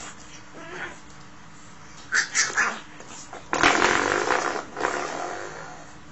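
Spring door stop being batted by a puppy: a few short sharp clicks about two seconds in, then a buzzing twang of the spring about three and a half seconds in that dies away over a second or so.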